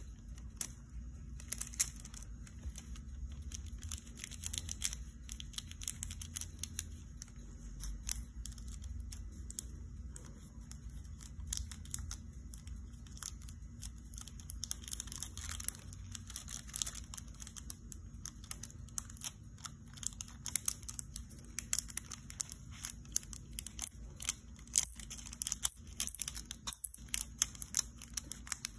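Thin nail-art transfer foil with a snakeskin print crinkling and crackling as it is handled and pressed onto long nails, a steady run of small sharp crackles over a low hum.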